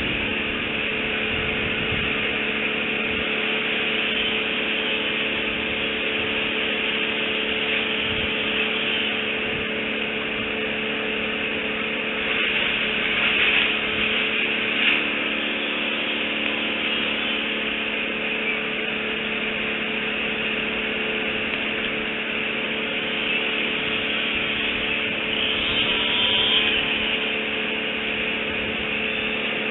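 Steady outdoor background noise picked up by a nest camera's microphone: an even hiss with a faint steady hum beneath it, swelling louder a couple of times.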